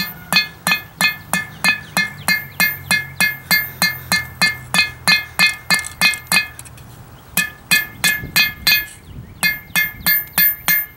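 Hand hammer striking hot steel on an anvil, about three blows a second, each blow ringing; the end of an old file is being drawn out into a knife point. The hammering breaks off briefly twice in the second half.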